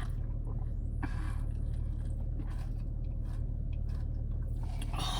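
A person chewing food close to the microphone, with soft, irregular mouth and bite noises over a steady low hum.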